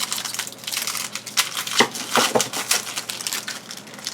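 Trading cards and their wrappers being handled: a quick, irregular run of card flicks, clicks and crinkles.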